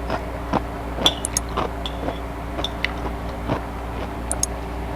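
A metal spoon clinking and scraping on a plate while someone eats. There is a cluster of sharp high clinks about a second in and two more near the end, with softer taps between them, over a steady low hum.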